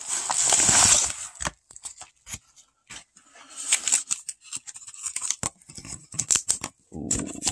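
Paper mailer rustling as a package is pulled out, then a string of light clicks, scrapes and crinkles as a cardboard sleeve held shut with blue painter's tape is opened and a plastic card slab is handled.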